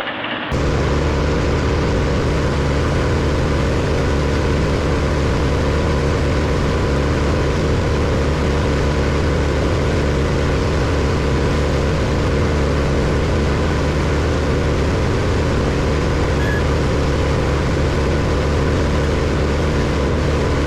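Heavy engine of a large wood-chipping machine running steadily and loudly, with a deep, even drone that starts abruptly about half a second in.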